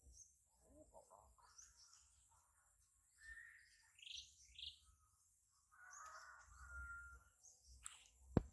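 Faint bird chirps and short calls over a quiet rural field, with one sharp click near the end.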